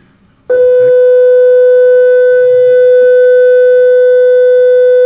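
A loud, steady tone held at one unchanging pitch, switching on abruptly about half a second in.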